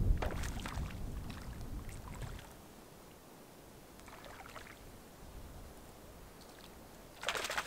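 Lake water splashing and sloshing as a hooked grayling thrashes at the surface and is brought into a landing net: several splashes near the start, a smaller one about four seconds in, and a louder splash near the end, with a low rumble in the first two seconds.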